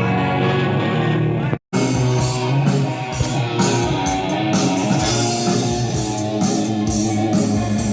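Live rock band playing at a sound check: electric guitar with effects over bass, joined by drum kit. The sound cuts out completely for an instant about one and a half seconds in, then the band carries on.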